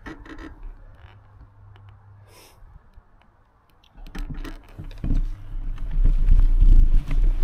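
Mountain bike riding over grass: light clicks and rattles at first, then, about four seconds in, wind rushing over the camera microphone and a rumble of tyres and frame come in suddenly and grow loud as the bike speeds down the slope.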